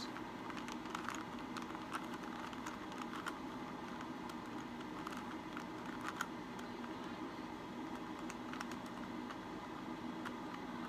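Faces of a plastic 3x3 Rubik's Cube being twisted by hand: scattered, irregular clicks and clacks over a faint steady hum.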